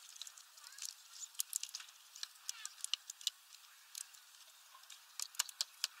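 Eurasian bullfinches husking seeds: irregular sharp clicks and cracks of beaks on seed hulls, several a second, with a quick cluster near the end.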